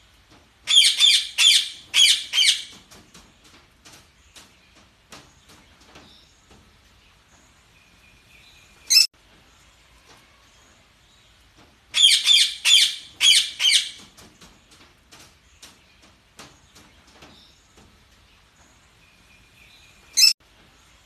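Budgerigars chirping: a loud run of quick chirps near the start, then a soft held whistle ending in a short sharp call, with quieter chatter and clicks between. The same sequence comes again about twelve seconds in.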